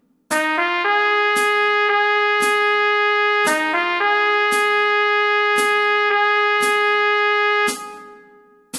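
Trumpet playing a melody: a quick run of short notes rising into a long held note, twice over, then stopping near the end. A sharp tick sounds about once a second under it and keeps going after the trumpet stops.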